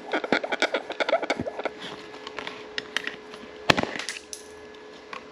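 Light clicking and rattling of small parts being handled during a motorcycle accessory installation, thickest in the first two seconds, with one sharper click a little before four seconds in.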